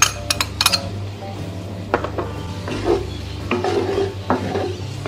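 Wooden spoon stirring and scraping chopped onions and jalapeños around a cast-iron skillet, a run of scrapes and knocks from about two seconds in. A few sharp clinks come first, as the jalapeños are tipped in from a small bowl.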